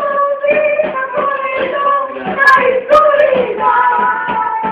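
Voices singing a song, holding long notes, with a couple of sharp knocks about halfway through.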